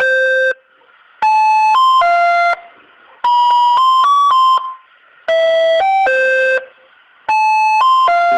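Multi-tone 'telolet' bus horn playing a short melody of several stepping notes, sounded in repeated phrases about every two seconds.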